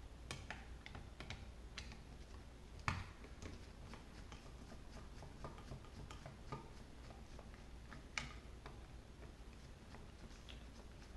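Faint, scattered small clicks and ticks of a screwdriver and small screws being worked out of a plastic airsoft pistol grip, with two louder clicks about three and eight seconds in.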